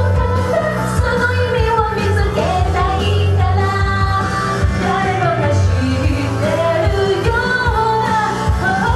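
Upbeat J-pop song with female vocals, sung into handheld microphones by two performers over a backing track with a steady bass beat.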